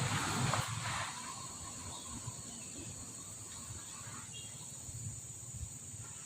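Insects buzzing in a steady, high-pitched chorus. A louder rumbling noise dies away about a second in.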